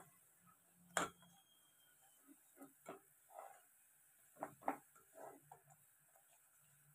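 Plastic ladle stirring thick, bubbling amaranth-leaf soup in an aluminium pan: one sharp knock of the ladle about a second in, then soft scattered clicks and gloopy plops.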